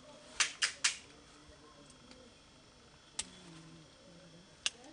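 Sharp dry clacks of sticks knocked together: three quick ones about half a second apart, then a single clack about three seconds in and another near the end.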